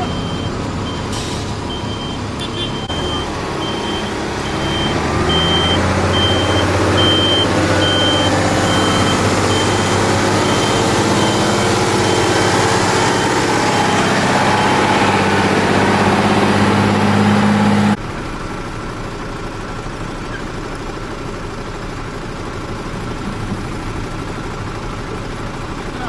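Fire tanker trucks' diesel engines running steadily, with a truck's reversing alarm beeping about once a second for the first half or so. The engine noise grows louder, then drops off suddenly, leaving a quieter steady rumble.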